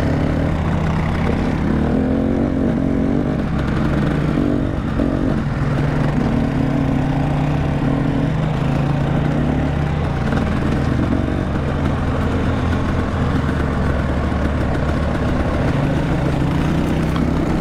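Off-road vehicle engine running steadily while riding a trail, its pitch rising and falling slightly with the throttle.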